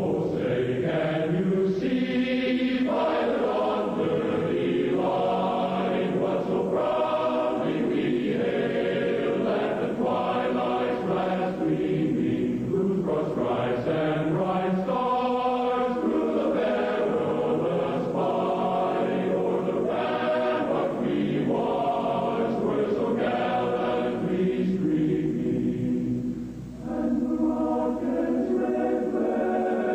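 A choir singing slow, long-held phrases, with a brief pause near the end.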